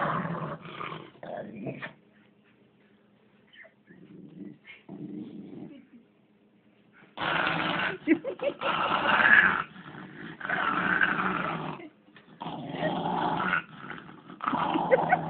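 Small dog play-growling while it wrestles with a person's hands: a happy, excited growl rather than real aggression. It comes in short broken growls at first, then four long, loud growls of a second or two each from about halfway through.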